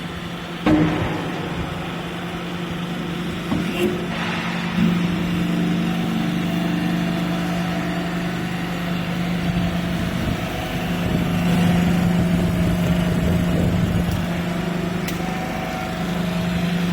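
Hydraulic scrap metal baler running: a steady hum from its hydraulic power unit, with a sharp loud clank about a second in and a few more knocks around four to five seconds in.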